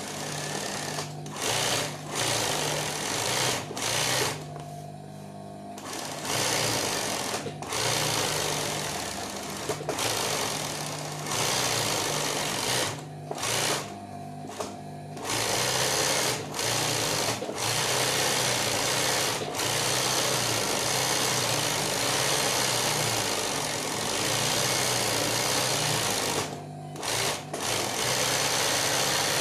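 Industrial sewing machine stitching freehand embroidery on hooped fabric, running fast in bursts that stop and restart often, with one longer unbroken run in the second half. A steady low motor hum carries on through the stops.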